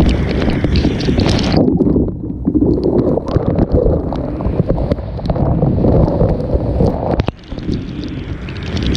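Strong thunderstorm wind buffeting a GoPro's microphone, with heavy rain and drops ticking on the camera. The high hiss drops away about one and a half seconds in, leaving a lower, rougher rush.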